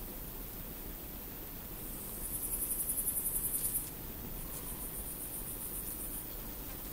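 A bush cricket stridulating: a high-pitched pulsed buzz of about nine pulses a second that comes in about two seconds in, stays loud for about two seconds, then carries on fainter for another two. It sounds over a steady high insect hiss from the meadow.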